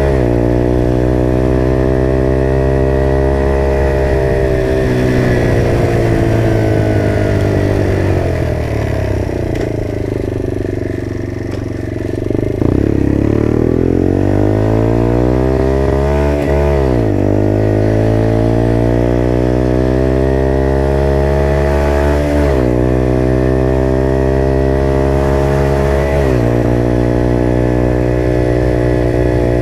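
Motrac M5 minibike's 50cc engine running under way: it pulls up in pitch, eases off and sags about a third of the way through, then revs back up. Its pitch drops suddenly three times in the second half, each drop followed by a steady climb again.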